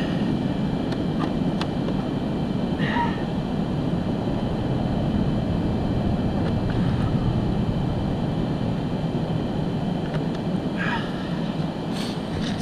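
Steady low rumbling noise, with two brief faint chirps, one about three seconds in and one near the end.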